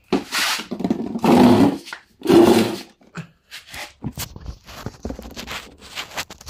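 Handling noise on a phone's microphone: loud rubbing and scraping as the phone is moved about and fitted into its stand, then a run of lighter knocks and clicks as it settles.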